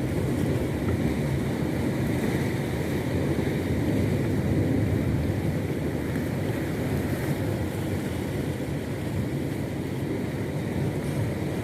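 Small fishing boat under way at sea: a steady motor drone mixed with rushing water and wind buffeting the microphone.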